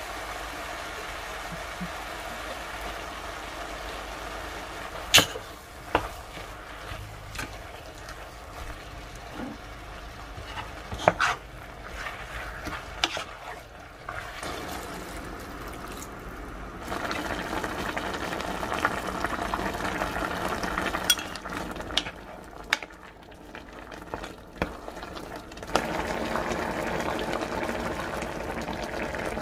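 Food cooking in a pan on the stove: a steady sizzle that swells louder twice, with a utensil clicking sharply against the pan several times.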